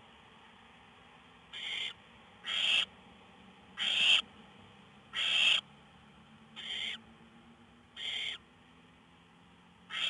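Barn owl nestlings giving their rasping, hissing begging calls (the 'snoring' of young barn owls): about six short hisses, roughly one every second or so, the loudest in the middle.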